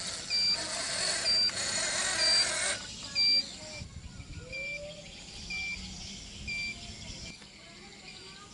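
An RC toy dump truck's reversing beeper sounds a short high beep about once a second. A loud hiss from the truck's drive under the beeps cuts off about three seconds in, and the beeping carries on.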